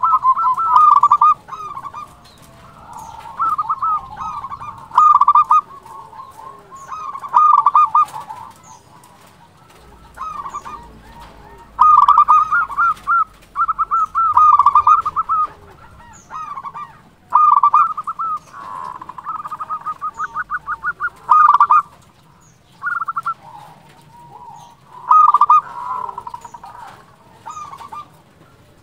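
Zebra dove (perkutut) cooing: repeated bursts of quick, rolling coo notes, each lasting a second or two, with short gaps and quieter cooing in between.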